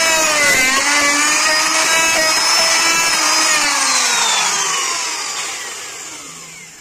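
Endico electric plunge router whining at full speed as it cuts a slot mortise in a wooden rail, its pitch wavering under load. About three and a half seconds in the motor is switched off, and the whine falls steadily in pitch and fades as it spins down.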